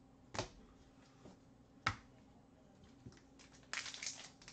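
Trading cards and packs being handled on a table: two sharp clicks, then from near the end a quick run of crackly crinkling as a foil card-pack wrapper is handled.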